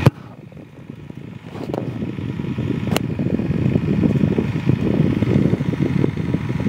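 A sharp knock, then a rough, fluttering low rumble that builds over about two seconds: air from the fan beneath the filament extruder's nozzle hitting the microphone held just above it. A faint steady motor hum runs underneath.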